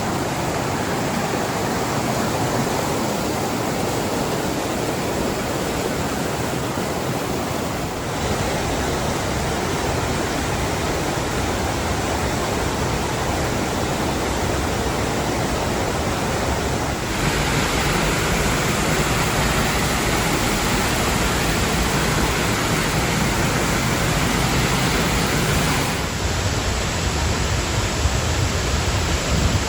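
Waterfall and creek water rushing steadily. The character of the rush changes abruptly about 8, 17 and 26 seconds in.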